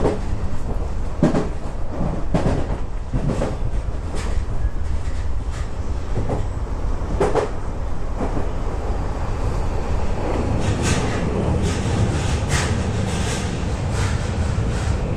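Tokyu 3020 series electric train running, heard from the passenger area behind the driver's cab: a steady low rumble with the wheels clicking over rail joints and points many times, the clicks coming closer together in the second half.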